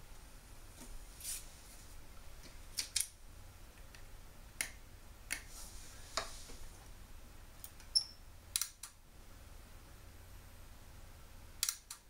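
Hands working on the circuit boards and cable connectors inside an opened plasma TV: about nine short, irregular clicks and taps, over a faint low hum.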